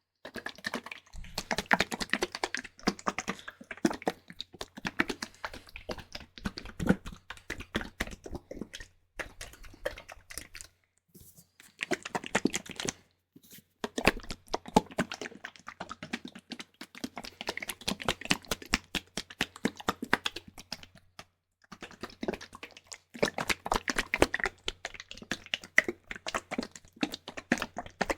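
Fingernails scratching directly on a microphone: fast, dense scratching and clicking in spells, broken by a few short pauses.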